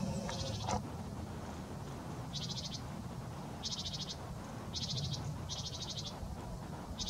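A small bird calling in short, rapid high trills, each about half a second long, five times with irregular gaps, over a steady low rumble.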